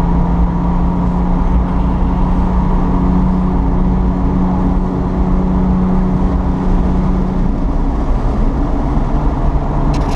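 A motor running steadily with a low held hum, which drops away about seven and a half seconds in while the running noise carries on.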